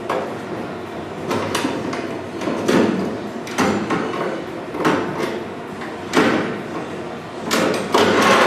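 Irregular knocks and clanks on car body steel, about one a second, each ringing on briefly, as of panel work with a hammer.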